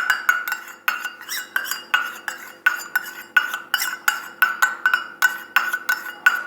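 Spoon clinking against the side of a small vessel while stirring honey into warm ginger juice, about three ringing clinks a second.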